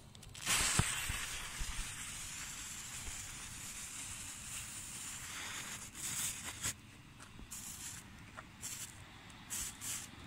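Comet 'Horrorhaus' firework fountain catching from its fuse about half a second in and spraying sparks with a steady hiss. From about six seconds the hiss breaks into short separate spurts.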